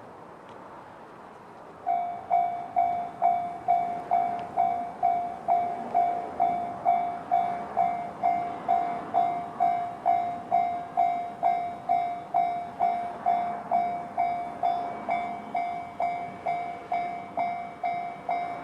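JR-standard level-crossing warning bell starting about two seconds in, an electronic ding repeating evenly a little over twice a second, each strike sharp and quickly decaying. It is the crossing's alarm signalling an approaching train.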